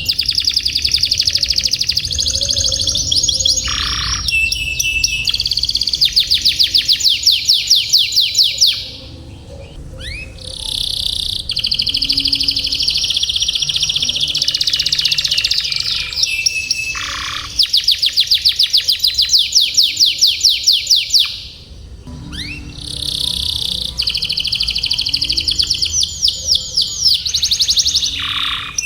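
Domestic canary singing a long, high-pitched song of fast trills and rolls in phrases a few seconds long, with short breaks about nine seconds in and again a little past twenty seconds.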